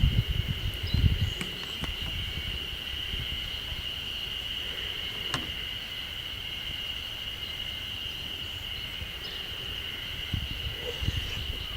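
Insects trilling continuously in one steady high-pitched drone, with a low rumble in the first second or two and a single sharp click about five seconds in.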